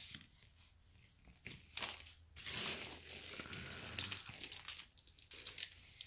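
Intermittent soft rustling and crinkling as a child handles a doll and small plastic toys on a foam mat.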